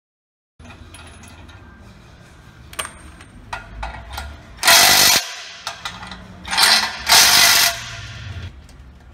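Hand lever grease gun being worked on a sawmill shaft's grease fitting: scattered metal clicks, then three short, loud, noisy bursts in the second half as grease is pumped through.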